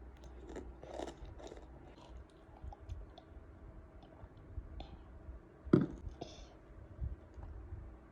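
A child chewing a mouthful of chocolate rice snack, with soft scattered mouth clicks and one sharp click about six seconds in.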